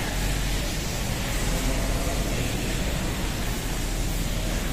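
Steady hiss with a low rumble underneath and no distinct events.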